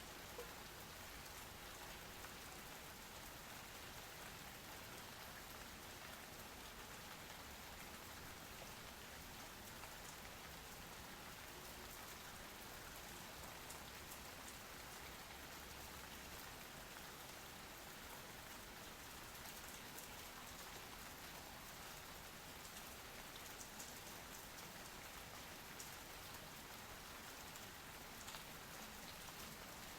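Steady rain falling: an even hiss of many drops, with scattered individual drops ticking through it.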